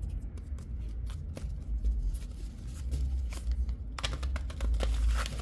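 Paper trading-card booster pack wrapper being handled, with irregular crinkling and crackling and a denser burst of crackles about four seconds in.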